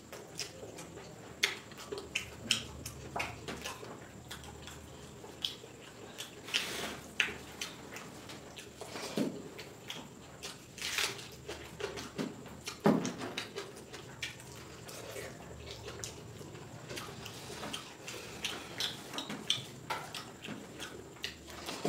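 A person eating rice and chicken curry by hand: irregular wet squishing and smacking, with short clicks of fingers against the plate, a few louder smacks about 7 and 11 seconds in.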